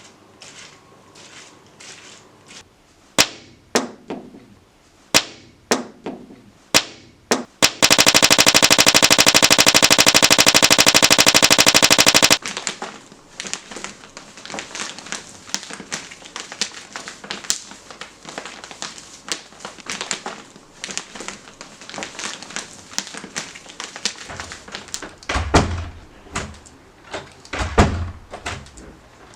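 A string of homemade Foley sound effects. It opens with scattered sharp knocks and clicks, then comes about four seconds of a very fast, even rattle, the loudest part. A long stretch of dense crackling follows, with a few low thuds near the end.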